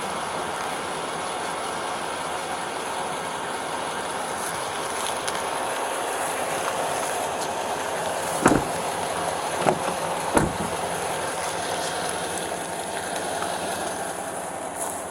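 Steady vehicle rumble and road noise, with three short knocks around the middle.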